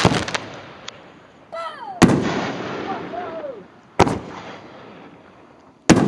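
Consumer aerial fireworks going off: three sharp bursts about two seconds apart, each trailing away over a second or so.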